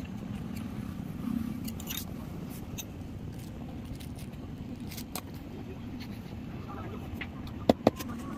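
Knife cutting and scraping leather on a wooden board, heard as scattered light clicks and scrapes, then two sharp knocks in quick succession near the end, over a steady low rumble.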